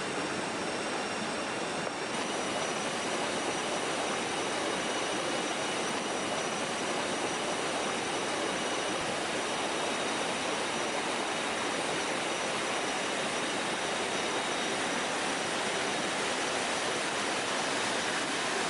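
Rushing water from a forest stream or waterfall: a steady, even roar, with faint steady high tones above it.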